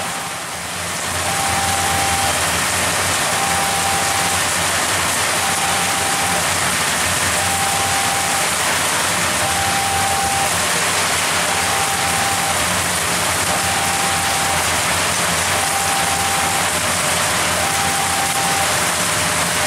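Heavy rain pouring steadily. Faint behind it, a level-crossing warning alarm sounds two tones, higher and lower, alternating about once a second.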